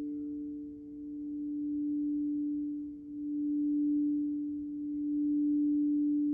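Crystal singing bowl sounding one long, steady tone with a fainter higher tone above it, swelling and easing about every two to three seconds.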